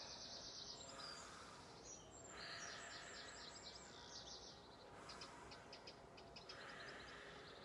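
Faint birdsong: songbirds chirping in quick runs of repeated high notes, over quiet outdoor background noise.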